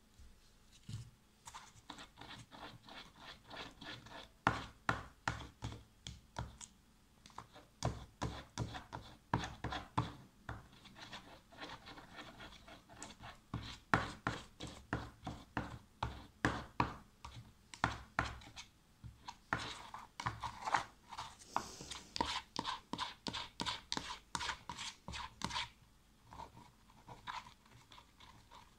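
A metal spoon stirring glue and boric-acid activator into slime in a plastic tub, scraping and knocking against the tub's walls in quick repeated strokes, about two a second, easing off near the end. This is the mixing stage, as the activator thickens the glue.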